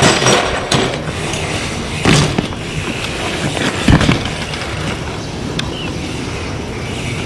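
BMX bike on asphalt, with tyre and rolling noise and two sharp thuds, about two seconds in and about four seconds in, as the bike comes down on the road.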